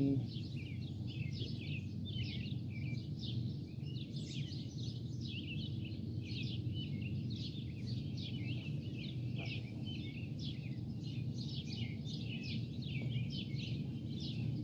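Birds chirping steadily in rapid short chirps, over a constant low hum of background noise.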